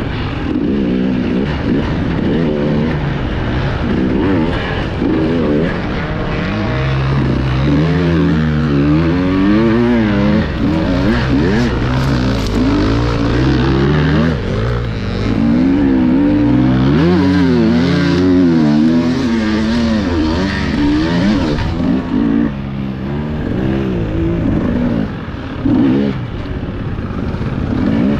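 Enduro motorcycle engine revving up and down as the throttle is worked, its pitch rising and falling again and again.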